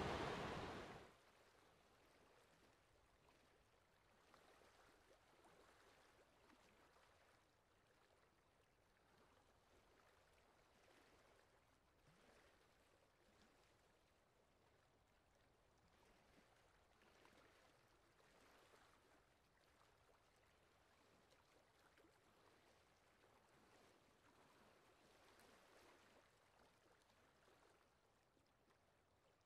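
Rushing river water cuts off about a second in, leaving near silence with a faint flow of water that rises and falls gently.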